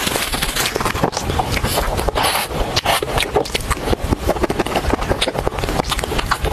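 Close-miked eating of soft cream mousse cake from a spoon: wet chewing and lip smacking, a dense run of quick small clicks.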